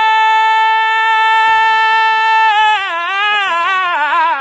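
A man singing R&B a cappella. He holds one long high note steady for about two and a half seconds, then breaks into a run of quick wavering turns that dip and climb again.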